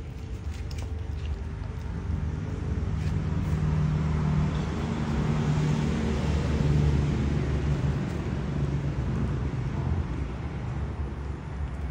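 A motor vehicle engine running close by, a steady low hum that grows louder from about two seconds in and eases off near the end.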